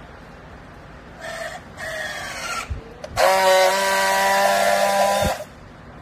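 Battery-powered handheld strapping tool on a plastic strap around a compressed clothing bale. It gives two short motor whirs with shifting pitch as it tensions the strap, then a loud steady buzz of about two seconds as it friction-welds the strap, stopping abruptly.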